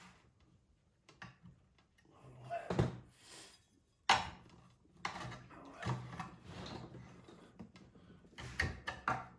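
Knocks, clunks and light scraping of a Tesla onboard charger's metal housing being handled and turned over while it is searched for screws. There are several sharper knocks, the loudest about four seconds in.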